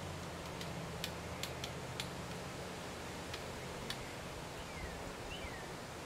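Downy woodpecker pecking at in-shell peanuts in a wire wreath feeder: sharp, irregular taps, most of them in the first two seconds, with one more near four seconds. Two faint falling whistle notes from another bird come near the end, over a steady low hum and rustling background.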